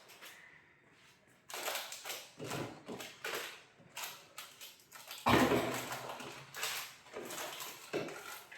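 Food packets and plastic containers being handled: irregular rustling and knocking, with the loudest clunk about five seconds in.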